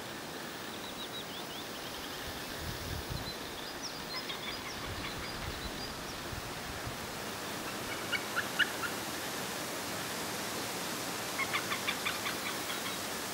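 White-tailed eagles calling in alarm near their nest: quick series of short yelping notes, a burst about eight seconds in and a longer run near the end, with fainter calls in the first few seconds, over a steady background hiss.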